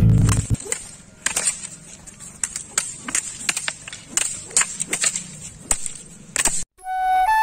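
Bamboo silambam staffs clacking against each other in quick, irregular strikes during sparring, about a dozen and a half sharp knocks. Guitar music cuts off at the start, and a flute tune begins near the end.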